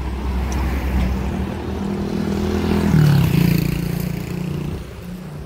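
A motor vehicle engine running close by, a steady low hum that rises in pitch and gets loudest about three seconds in as it revs, then fades.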